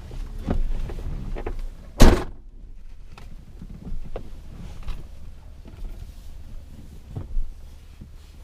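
A vehicle door shutting with one loud thunk about two seconds in, amid a few smaller knocks and clicks inside the truck.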